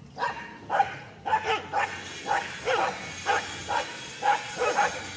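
A dog barking over and over in short, sharp barks, about two to three a second, starting just after the beginning.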